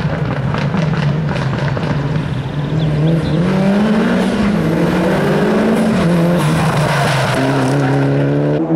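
A four-wheel-drive rally car's engine runs at high revs, its pitch climbing and dropping repeatedly with gear changes and throttle lifts. Tyre squeal comes through at times.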